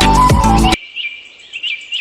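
Electronic background music with a drum beat that cuts off abruptly about three-quarters of a second in, followed by a bird's short, repeated rising chirps, about three a second.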